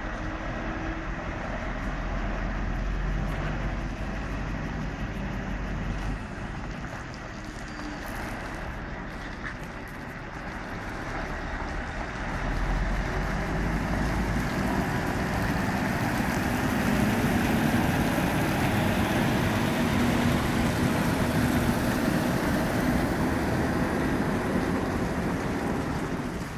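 Scania R730's V8 diesel engine running as the truck and trailer pull away slowly and drive past. It grows louder from about halfway through as the rig comes close.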